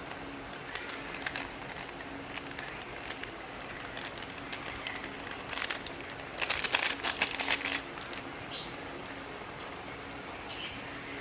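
Beef and mushrooms frying in a pan, crackling and spitting, with a dense burst of crackle about six and a half seconds in that lasts about a second and a half. A steady low hum runs underneath.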